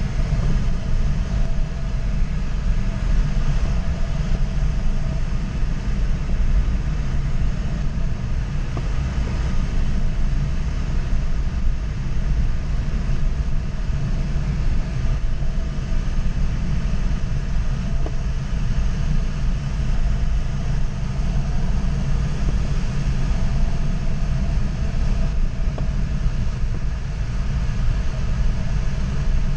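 Steady rush of airflow around a gliding ASK 21 two-seat sailplane, heard inside the cockpit, heaviest at the low end.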